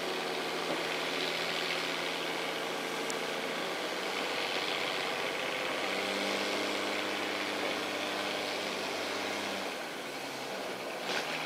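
Heavy engine running steadily; its note rises about halfway through and falls back near the end. A brief knock sounds shortly before the end.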